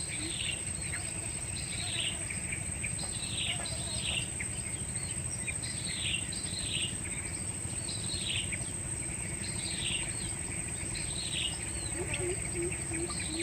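A bird repeating short falling call notes, often in pairs, about once a second, over a steady high-pitched insect drone and a low background rumble.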